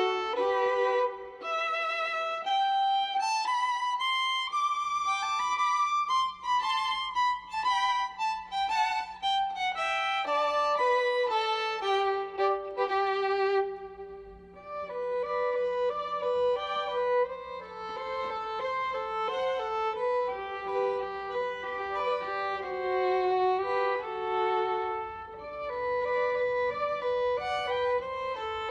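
Background music led by a violin melody, notes moving up and down with vibrato.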